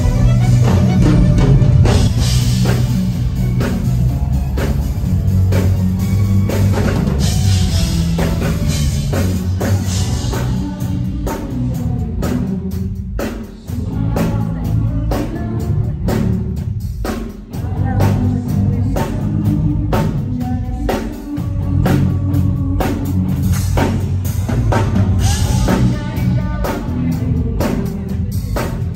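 A live band playing: drum kit and bass carrying a steady beat under a string section and keyboard.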